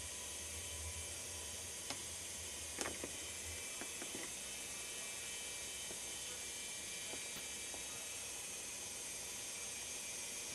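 Quiet indoor room tone: a steady hiss with a low hum that stops about a third of the way in, and a few faint clicks.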